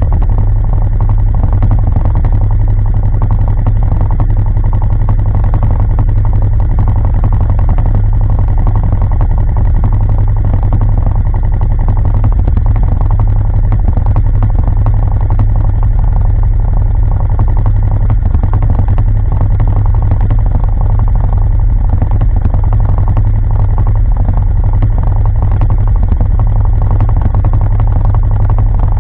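ATV engine idling: a loud, steady low rumble that holds evenly throughout, with no revving.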